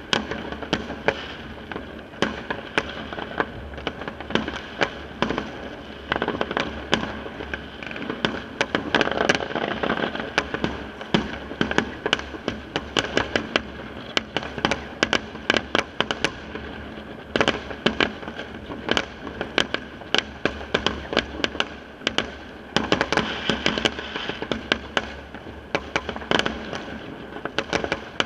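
Many fireworks going off at once: a continuous barrage of sharp bangs and crackling, with aerial shells bursting in the sky.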